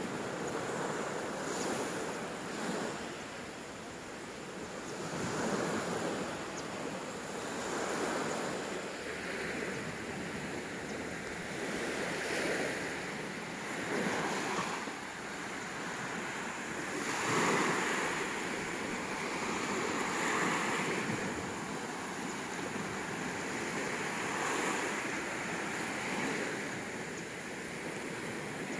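Small waves washing up onto a sandy beach, each one swelling and falling away every two to three seconds.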